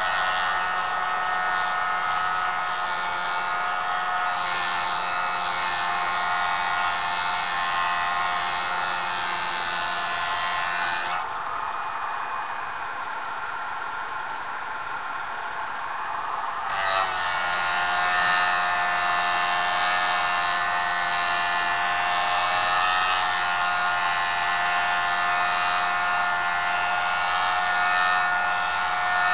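Jooltool sharpening system running: the motor spins an abrasive disc steadily while an edge is ground against it, giving a continuous grinding rub. For several seconds around the middle the grinding is lighter and its higher hiss changes, then it returns at full strength.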